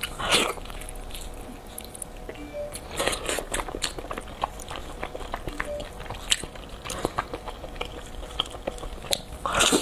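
A person biting and chewing glazed grilled eel close to a clip-on microphone: irregular wet mouth clicks and smacks, with a louder bite just after the start and another near the end.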